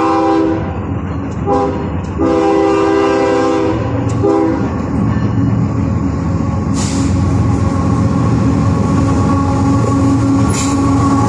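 GE ES44AC diesel-electric locomotive sounding its air horn in a run of long and short blasts through the first four and a half seconds as it approaches. After that comes the steady sound of its diesel engine and the train rolling, with a couple of sharp clicks.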